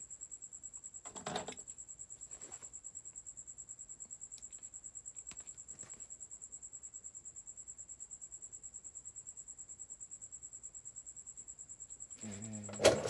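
A steady high-pitched tone pulsing about eight times a second, with a few faint clicks. Near the end a low hum comes in and there is one sharp, loud click.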